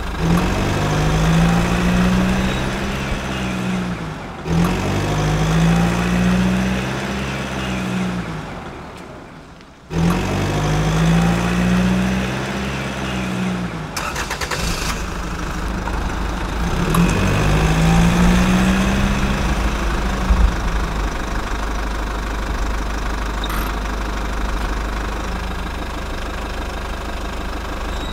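An engine revving up and easing off in four swells of three to four seconds each, over a steady low running hum. About a third of the way through, the sound fades down and then cuts back in sharply.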